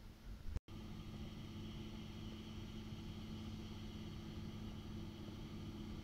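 John Deere 6150R tractor's six-cylinder diesel engine running steadily at a distance under load while pulling a plough. The sound cuts out for a moment about half a second in, then the steady engine hum carries on.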